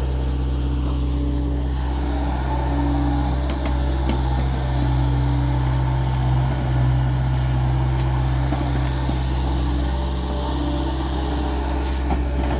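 Liebherr 900 wheeled excavator's diesel engine running steadily under digging load, with a whine that comes and goes every second or two as the hydraulics work the boom and bucket.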